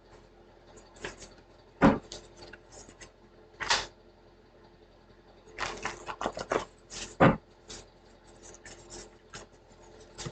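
Irregular handling noises: light clicks and rustles with a few sharper knocks, the loudest about two seconds in and again around seven seconds, with a busy run of small clicks just before it.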